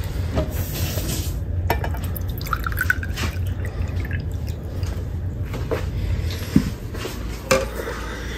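A red drink poured from a glass pitcher into a small glass, the splashing rising in pitch as the glass fills, over a steady low hum, with a couple of sharp knocks near the end.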